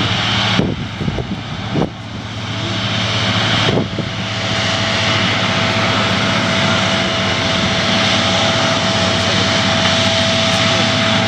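Jet airliner engines running, a loud steady rushing noise with a low hum. It dips briefly about a second in and again near four seconds, and a faint steady whine runs through it from about two seconds on.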